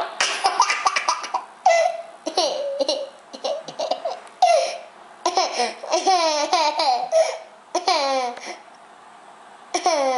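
Toddler laughing in several separate bouts of giggles, each a run of short high syllables falling in pitch.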